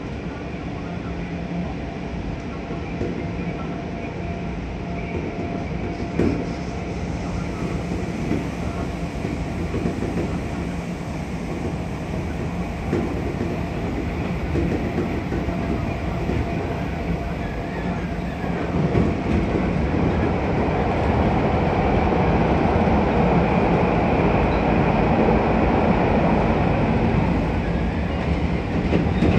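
Toei 10-000 series electric train running along the track, heard from inside the driver's cab: steady rolling and running noise with a few short knocks, growing louder about two-thirds of the way in.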